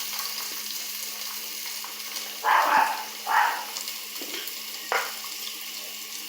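Food frying in a pan, a steady sizzle, with two louder rasping sounds about halfway through, like stirring in the pan, and a short click a little later.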